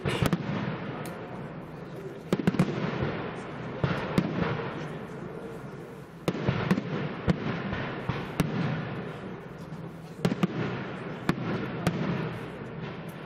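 Aerial firework shells bursting overhead in a professional display: a string of sharp bangs, several coming in quick clusters, over a continuous rumble between them.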